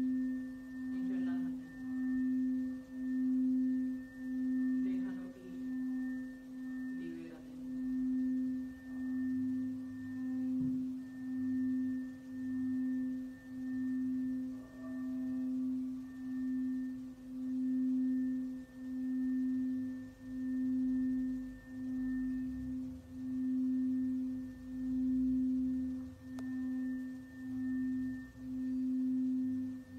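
Red frosted crystal singing bowl being played by circling a mallet around its rim, ringing one low sustained tone with fainter higher overtones. The tone swells and fades in a steady pulse about every second and a half.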